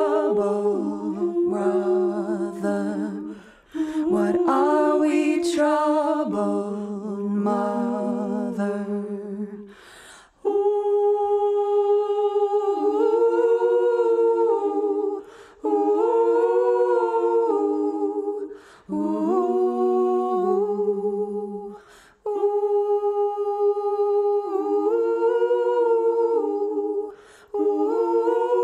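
Wordless a cappella humming, several voices in harmony, in phrases of a few seconds with short breaks between them.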